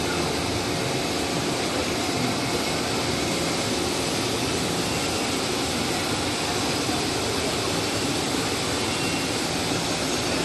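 Automatic cast stretch film machine and its rewinder running: a steady, even whir and hiss that holds without change.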